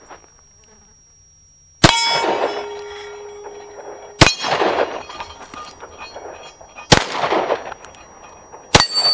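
Four handgun shots, two to three seconds apart, each followed by the ring of a struck AR500 steel plate; the first plate rings longest, with a clear humming tone.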